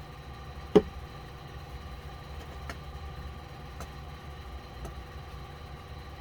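Plastic parts of an Xbox One controller being worked apart: one sharp click about a second in, then a few faint clicks, over a steady low hum.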